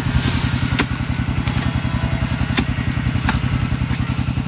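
Small engine running steadily with a fast, even chug, and a few sharp clicks over it.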